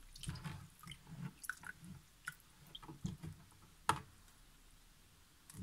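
Faint water sounds from hands pressing and lifting a wet piece of cross-stitch fabric in a basin of warm soapy water: small splashes, squishes and drips, with a sharper tick just before four seconds, then quieter.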